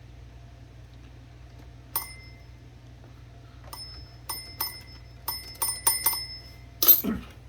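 Typewriter margin bell ringing: one ding about two seconds in, then a quick run of dings. Its spring-loaded striker has been freed so it returns to rest after each ring. A louder metallic clatter follows near the end.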